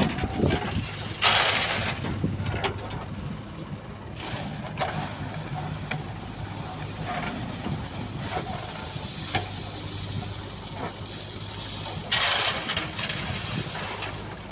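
JCB 3DX backhoe loader's diesel engine running steadily under the work. Twice, about a second in and again near the end, comes a loud rush of stone chips pouring from the backhoe bucket into a steel tractor trolley.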